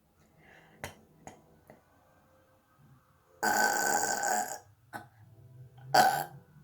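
A young woman burping: one long burp about three and a half seconds in that lasts about a second, then a short second burp near the end.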